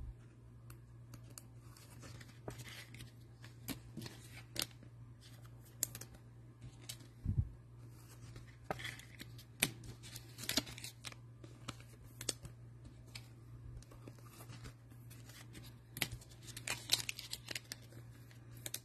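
Trading-card hanger box packaging being torn open and handled: irregular tearing and crinkling with scattered sharp clicks and taps, and one low thud about seven seconds in, over a steady low hum.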